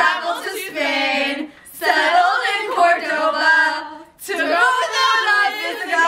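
Several young women singing together without accompaniment, in sung phrases broken twice by short pauses for breath.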